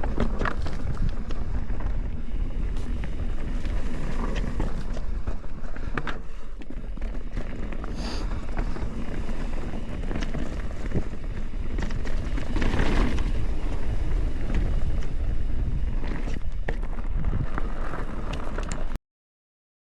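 Norco Fluid FS mountain bike being ridden on a trail: steady wind rumble on the microphone mixed with tyre and bike noise. It cuts off abruptly about a second before the end.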